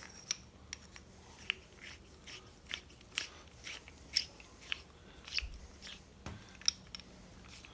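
Small, sharp, irregular clicks and ticks, one or two a second, as a helical thread-repair insert is wound through the prewinder funnel of its installation tool, shrinking the coil.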